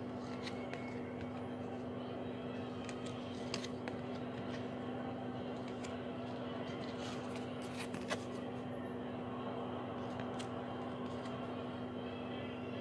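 Trading cards handled by hand, slid and flipped off a stack with scattered light clicks, the clearest about three and a half seconds and eight seconds in, over a steady low hum.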